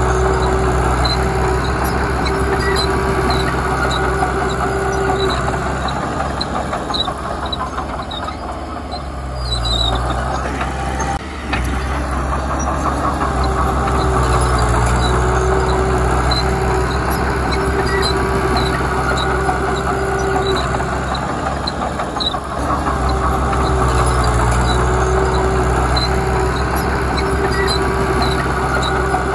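Komatsu D31P bulldozer's diesel engine running steadily under work, easing off briefly about nine seconds in and again a little past twenty seconds, with a light ticking about twice a second.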